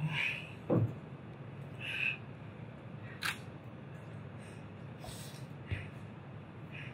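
A man breathing out heavily a few times, with a dull thud just under a second in and a sharp click about three seconds in.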